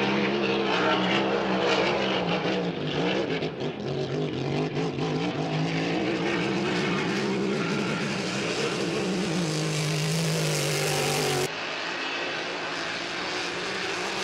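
Grand Prix class racing hydroplane's V8 engine running at high speed, its pitch dipping and recovering as the throttle changes, over the hiss of spray. About eleven seconds in the sound drops abruptly and turns thinner.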